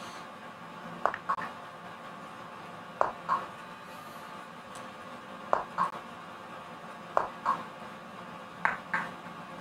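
Sharp clicks in pairs, five pairs about two seconds apart, the two clicks of each pair about a third of a second apart, as chess moves are played through one by one.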